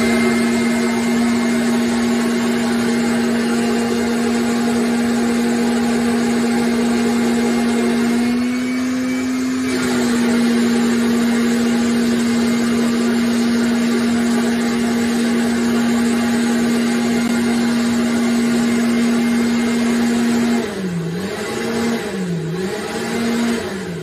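Power drill spinning a rotary dryer-vent cleaning brush through the duct. It runs loud at one steady pitch, and near the end it slows twice before winding down.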